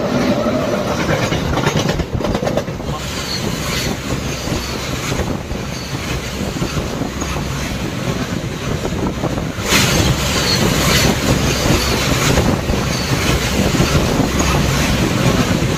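Train noise at speed as another train's coaches pass close alongside: a steady loud rush of wheels on rail with clatter, louder from about ten seconds in.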